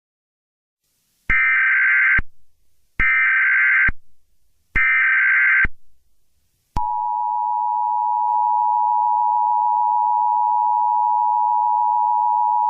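Emergency Alert System tones: three short bursts of SAME header data, each just under a second long and evenly spaced. About seven seconds in, the steady two-tone EAS attention signal starts.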